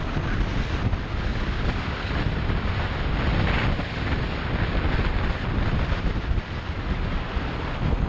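Wind rushing over an action camera's microphone on a moving motorcycle, a steady rough noise, with the Kawasaki Ninja 250SE running underneath at cruising speed.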